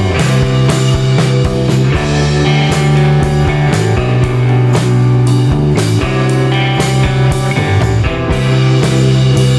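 Background rock music with electric guitar and a steady drum-kit beat.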